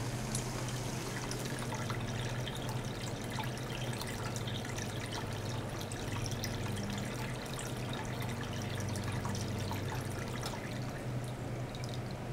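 Water trickling and dripping from a shower outlet into a plastic tub, with many small irregular splashes, over the steady low hum of a small liquid-circulation pump.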